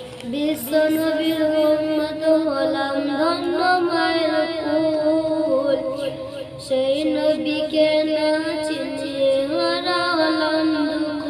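A boy singing a Bengali Islamic gojol (devotional song) solo, a wavering, ornamented melody held on long notes.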